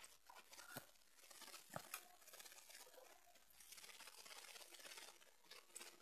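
Near silence with faint handling noise: light rustling and a few small clicks from plastic parts of a remote control toy jeep being handled.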